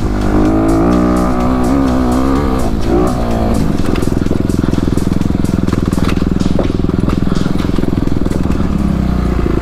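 Dirt bike engine heard from the rider's helmet, its revs rising and falling with the throttle for the first few seconds, then running steadily with a fast, even firing pulse.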